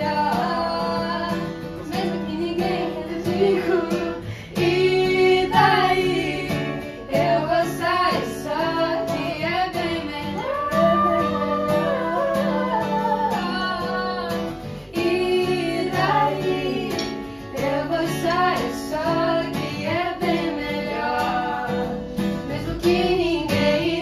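Two women singing a light pop song in Portuguese together, accompanied by a strummed acoustic guitar.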